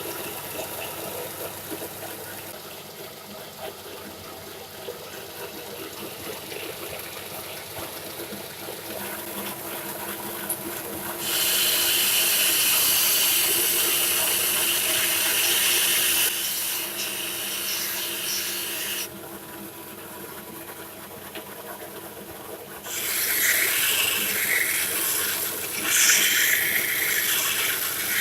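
A converted electric belt sander's motor runs steadily, with two spells of much louder hissing sanding or grinding, each about five seconds long: one a little before the middle and one near the end.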